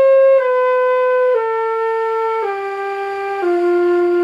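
Jupiter JFL700 concert flute playing a slow descending scale, one held note about every second, stepping down from C through B, A and G to F. It is played with the lip shape kept the same as the notes go lower, the beginner's mistake being demonstrated.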